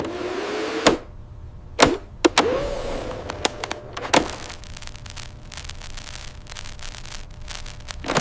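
A small electric motor whirs up twice in short rising whines, among several sharp clicks and clunks, followed by a run of faint rapid clicking.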